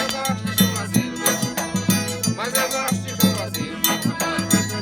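Forró pé de serra music: accordion chords over a steady zabumba beat, with a triangle or shaker ticking quickly on top, and a voice singing a phrase partway through.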